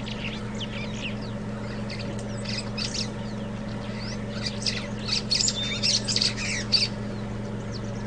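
Birds calling: many short, high chirps and squawks, busiest about five to seven seconds in, over a steady low hum.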